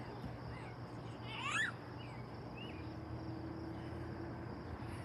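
Quiet outdoor ambience: a steady high insect chirring over a low hum, a brief rising call about one and a half seconds in, and a couple of faint chirps a second later.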